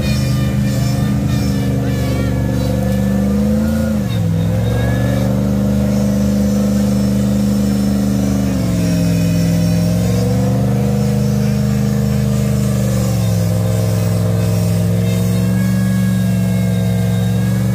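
Off-road 4x4 competition truck's engine held at high revs, running loud and steady. Its pitch sags and climbs back three times, about four, nine and thirteen seconds in.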